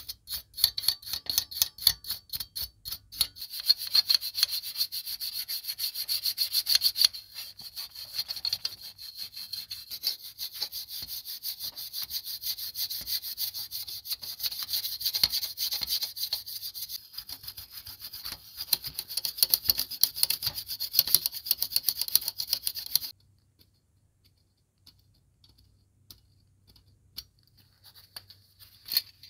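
Toothbrush scrubbing the grimy, rusty metal base of an old snap mouse trap in fast back-and-forth strokes. The scrubbing stops about three-quarters of the way through, followed by a few faint clicks.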